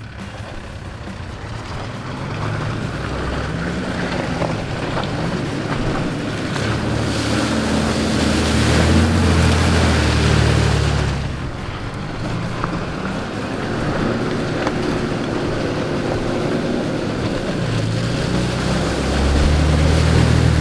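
Off-road 4WD engines revving and labouring as two vehicles drive one after the other through a muddy water crossing, with water splashing and sloshing. The first pass peaks and cuts off about halfway through. The second vehicle, a Nissan Patrol, builds to its loudest near the end.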